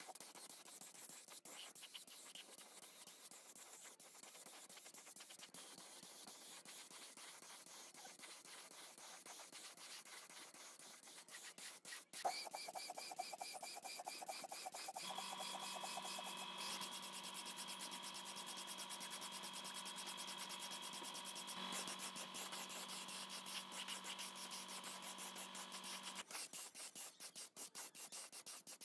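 Gravity-feed paint spray gun hissing as it sprays paint onto metal parts, a little louder after about twelve seconds. A steady hum with a high whine joins about halfway through and stops a few seconds before the end.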